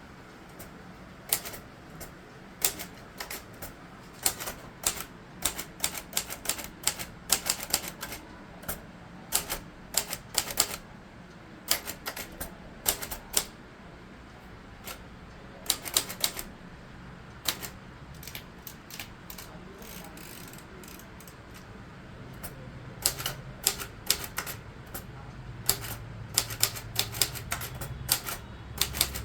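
Royal Quiet De Luxe manual portable typewriter being typed on: irregular runs of sharp key strikes with short pauses between them. A low hum comes up in the last third.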